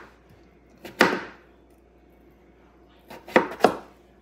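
Kitchen knives cutting through raw potatoes and knocking on a wooden cutting board: one sharp knock about a second in, then two more in quick succession near the end.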